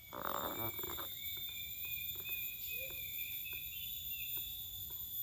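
Steady, high-pitched chorus of insects, crickets or cicadas, ringing on several thin tones throughout. A brief louder sound comes in the first second, and faint scattered clicks follow.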